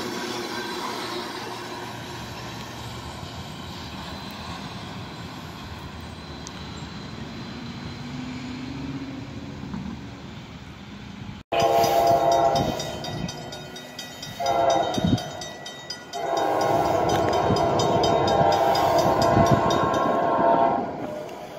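Freight train hopper cars rolling past on the rails and fading as the end of the train moves away. After a sudden cut, an approaching diesel locomotive's air horn sounds three blasts, long, short, then long, with a grade-crossing bell ringing under them.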